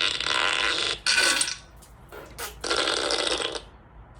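A comedy burp sound effect played through a phone's small speaker, in three bursts: one about a second long, a short one, then after a pause another lasting about a second.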